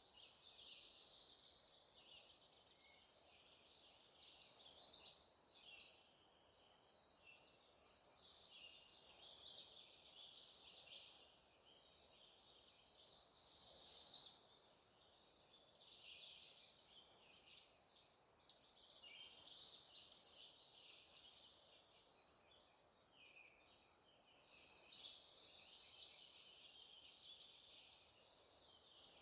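Several songbirds singing over one another in a continuous high chatter, with one louder song phrase rising out of it about every four to five seconds.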